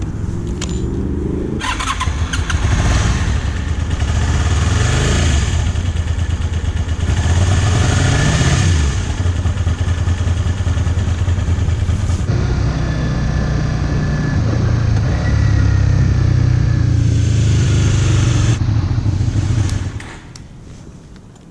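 Motorcycle engine starting and running, revved up and down a couple of times, on a bike with an intermittent starting problem.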